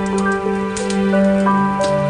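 Calm instrumental music with slow held notes that change every half second or so, over a wood fire crackling with scattered sharp pops.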